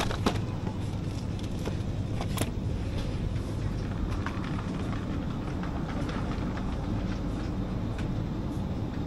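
Steady low rumble of supermarket background noise, with a few light clicks and knocks, one sharper about two and a half seconds in.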